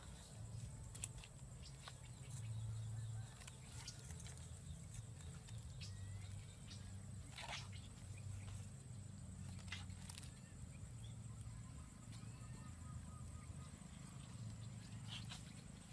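Hands tearing cooked chicken apart in a stainless steel bowl, making scattered soft clicks and taps, over a steady low outdoor rumble with a few faint chirps.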